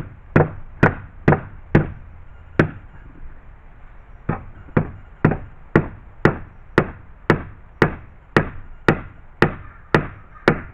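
Hammer driving nails into a wooden gate board: steady blows about two a second, a short pause after the first few, then a long even run of strikes.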